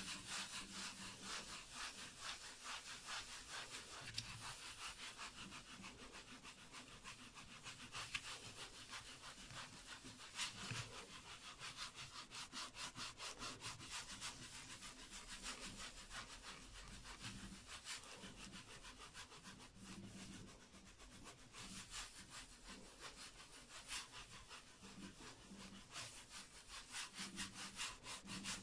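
A baren rubbed in quick, even strokes over the back of printing paper laid on an inked lino block: a faint, dry, scratchy rubbing as the ink is transferred to the paper.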